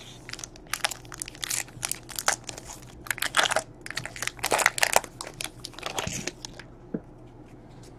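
Plastic trading-card pack wrapper crinkling and crackling in quick, uneven bursts as it is handled and opened, for about six and a half seconds before it goes quiet.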